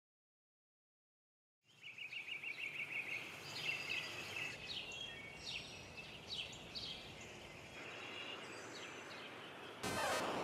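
Birds chirping and trilling over a faint steady hiss of outdoor ambience, starting after a second or two of silence. Near the end comes a short burst of rushing noise.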